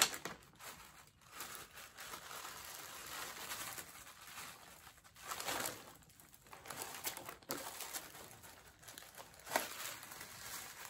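Plastic packaging rustling and crinkling in short spells while a wig is handled and taken out of its wrapping.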